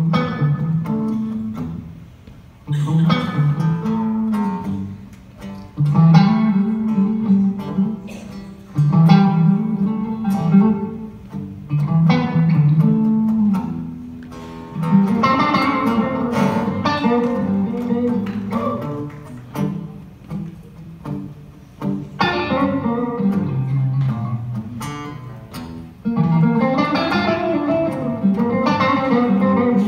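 Electric guitar played alone in a free solo passage: picked notes and chords in phrases that each start sharply and ring out, a new phrase every few seconds.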